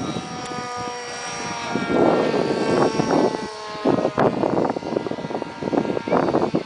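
Radio-controlled model aircraft's motor and propeller droning steadily in flight, its pitch drifting slightly. From about two seconds in, loud, irregular rough rushing bursts come and go over it.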